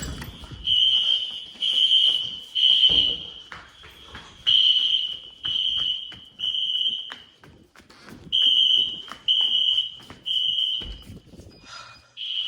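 Building fire alarm sounding the temporal-three evacuation pattern: three high beeps about a second apart, then a pause, repeated three times, with a fourth round starting near the end. The resident thinks a power flicker during a thunderstorm set it off. A few low thumps sound underneath.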